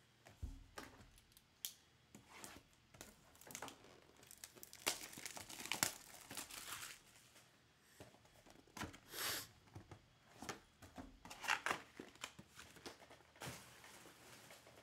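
Plastic shrink-wrap crinkling and tearing as a sealed trading-card hobby box is unwrapped and opened, in irregular rustles and crackles.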